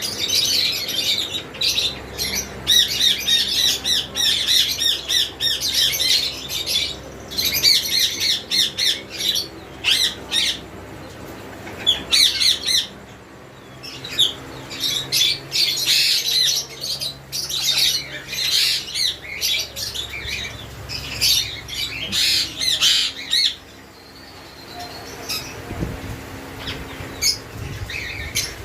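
Many caged birds chirping and squawking in rapid, overlapping calls, with short lulls about halfway and again near the end. A faint steady hum runs underneath.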